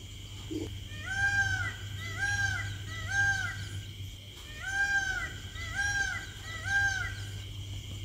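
Male green peafowl calling: two series of three loud, arching calls, each about a second apart.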